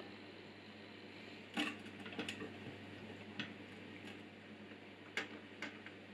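About half a dozen light clicks and knocks as an angle grinder is shifted and seated in the clamp of a metal bench stand.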